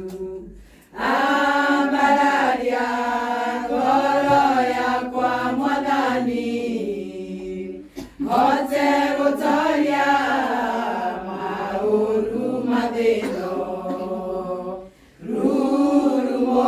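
A group of women singing together in long held phrases, with short breaks between the lines.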